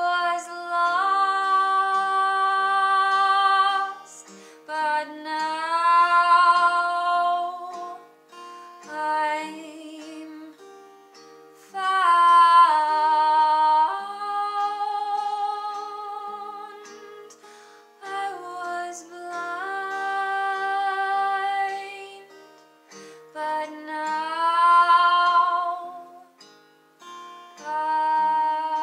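A woman singing long, held wordless notes with vibrato, in phrases a few seconds long, over an acoustic guitar.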